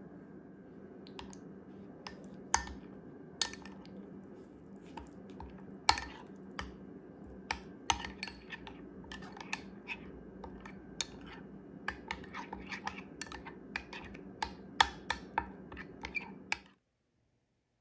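Metal spoon stirring a thick yogurt-and-spice marinade in a glass bowl, with irregular sharp clinks against the glass that come faster in the second half, over a steady low hum. The sound stops abruptly near the end.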